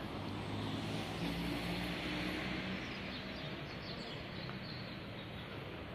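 Outdoor city ambience: a steady rumble of road traffic that swells about one to three seconds in, as if a vehicle is passing, then eases.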